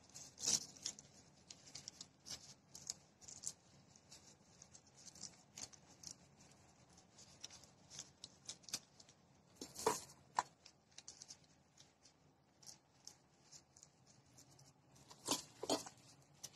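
A plastic-gloved hand pressing and spreading sticky rice over a nori sheet on a bamboo sushi mat: faint, scattered crackling and rustling, with a few louder taps about half a second in, around ten seconds and near the end.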